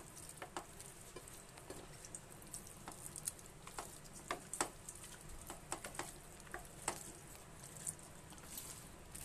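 A bare hand squeezing and turning raw chicken pieces in a thick marinade paste in a steel bowl: soft, irregular wet squishes with short clicks scattered through.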